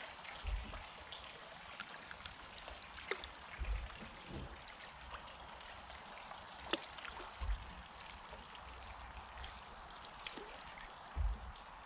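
Canoe paddle strokes in the water: quiet dipping, trickling and dripping from the blade with small splashes, and a few soft low thumps about every three to four seconds.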